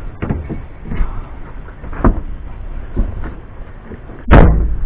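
Pickup truck door being worked on freshly replaced hinge pins: a few light clicks and knocks, then a heavy shut near the end.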